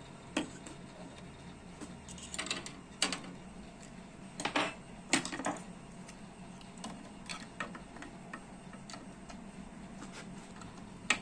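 Light clicks and knocks of hands handling and fitting an Endurance 10-watt laser module onto its mounting bracket on a 3D printer's print head. Several clatters in the first half, a sharp click near the end, over a low steady hum.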